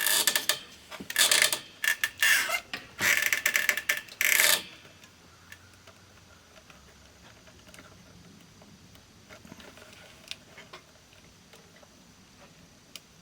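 A run of scraping and rubbing handling noises over the first four and a half seconds, then only a few faint scattered clicks.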